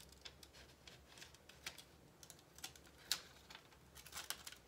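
Faint crinkling and light ticks of wax paper being peeled back off a candle after heat transfer, with a sharper crackle about three seconds in.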